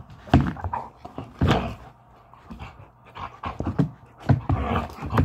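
Siberian husky making a series of short, irregular vocal sounds close to the microphone.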